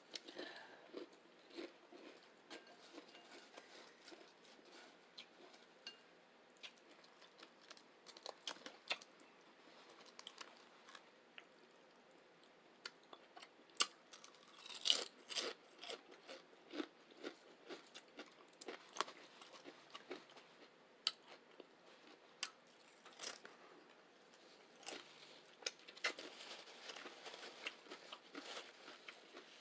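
Crunching and chewing of chips topped with chili and beans: irregular crisp bites, with denser runs of crunches about halfway through and again near the end.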